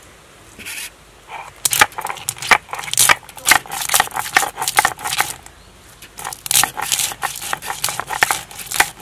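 Dried castor seeds cracking and crunching as a roller is worked back and forth over them on a grinding slab, breaking the hard shells to free the white kernels. A quick run of sharp cracks starts about two seconds in, pauses briefly near the middle, then picks up again.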